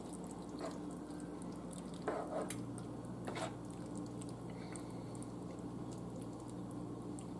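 Spoon stirring thick shrimp creole sauce in a skillet: soft wet squishes and a few light clicks of the spoon against the pan, over a steady low hum.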